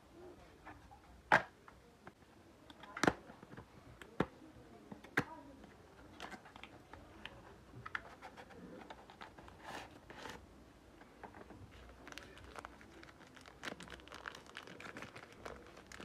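Unboxing a cable: a cardboard box is handled and opened, giving four sharp clicks and taps in the first five seconds. Then a plastic pouch crinkles as it is drawn out and handled.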